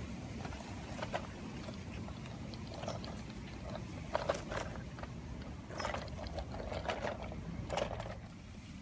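Small clicks and knocks from a diecast toy garbage truck being worked by hand, its parts tapping and clattering irregularly several times. A steady low rumble runs underneath.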